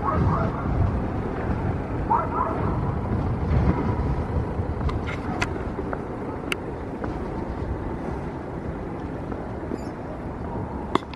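Outdoor street ambience: a steady low rumble of road traffic, with brief distant voices near the start and a few sharp clicks later on.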